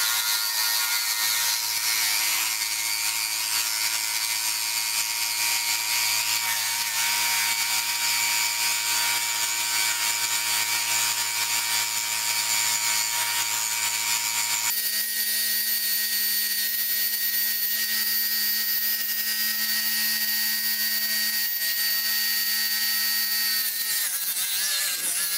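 Angle grinder and power drill boring into granite with 22 mm fused-diamond core bits: a steady motor whine over the grinding of diamond on stone. The tone changes abruptly about fifteen seconds in.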